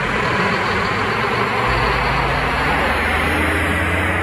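Loud, steady running noise of a large vehicle's engines: a rushing roar with a low steady hum beneath it.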